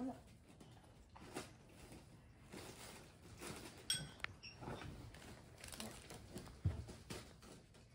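Quiet room with scattered soft knocks and rustles of handling, a brief high squeak about four seconds in, and a dull thump near the end.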